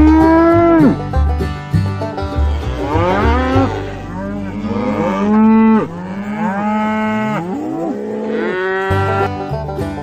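Cows mooing: about five long moos one after another, each rising in pitch and then held.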